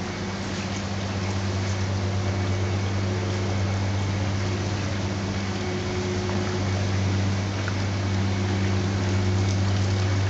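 Steady low motor hum under a constant rush of air and water: large greenhouse exhaust fans and an aquaponic system's water circulation running.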